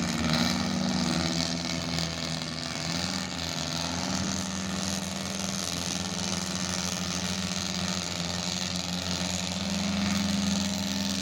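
An engine running steadily at low revs, its pitch wavering slightly.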